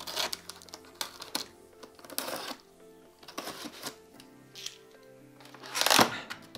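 Small utility knife slicing along the edge of a cardboard box: sharp clicks and short scraping strokes, the loudest a longer scrape about six seconds in. Soft background music with held notes plays underneath.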